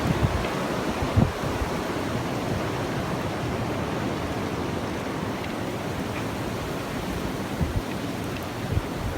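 Blizzard wind blowing steadily, with low gusts buffeting the microphone.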